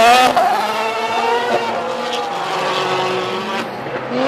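Formula One car engine revving high and loud, then its pitch sinking and the sound fading as the car drives off down the track. Near the end another racing car's engine rises in pitch and level as it comes closer.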